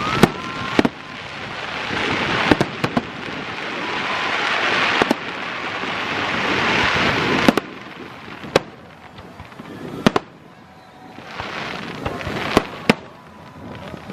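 Aerial fireworks bursting overhead: sharp bangs every second or two. Between the bangs a rushing noise swells for several seconds and stops abruptly about halfway through, then comes back briefly near the end.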